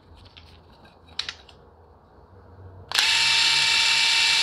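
DeWalt 20V brushless three-speed impact driver, set to its lowest speed, starts up about three seconds in and spins freely with a steady, even whine, running unloaded while its RPM is read. Before it starts there is only a faint click or two of handling.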